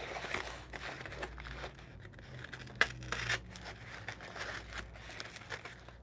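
Folding knife cutting open a package wrapped in corrugated kraft cardboard, with paper tearing and crinkling as it is handled, and a short sharp click about three seconds in.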